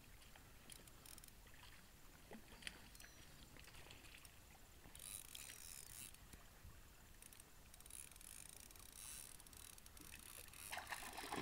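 Near silence: faint background hiss with a few scattered faint ticks.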